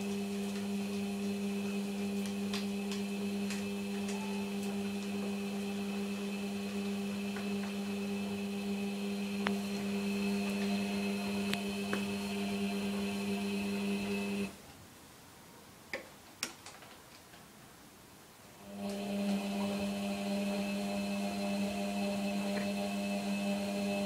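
Beko front-loading washing machine on its wash cycle: the drum motor runs with a steady hum, stops for about four seconds a little past halfway with a couple of clicks, then starts up again. The stop is the usual pause while the drum changes direction during washing.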